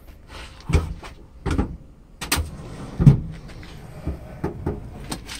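Heavy Tesla battery pack being pulled back over wooden 2x4s: a few irregular clunks and knocks with scraping between them, the loudest knock about three seconds in.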